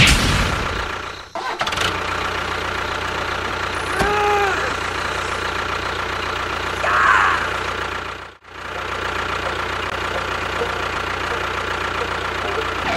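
Tractor engine running steadily with a knocking diesel beat, broken off briefly twice. A short pitched call sounds about four seconds in.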